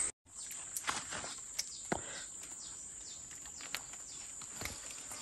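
Steady high-pitched insect drone in tropical forest undergrowth, with a few scattered snaps and rustles of leaves and twigs as someone moves through the brush.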